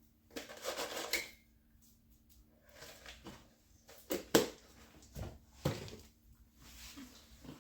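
Kitchen handling noises: a rustle near the start, then a handful of sharp knocks and clunks as a dish and containers are handled on the counter, over a faint steady hum.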